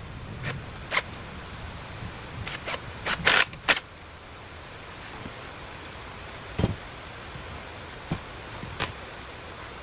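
Irregular sharp knocks and clicks of wooden parts being handled, a quick cluster of them about three seconds in and a few single ones later, over a steady background hiss.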